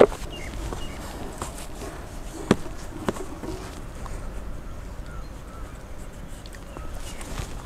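Wooden rolling pin rolling out a thick dough on an aluminium tray, with a few short knocks, one right at the start and two a little after two and a half seconds in, over a steady outdoor background hiss.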